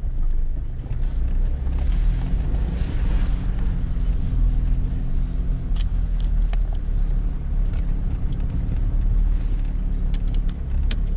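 Mitsubishi Montero 4x4 driving with its engine running steadily. The engine pitch rises about two seconds in and then holds, with a few sharp knocks or clicks near the end.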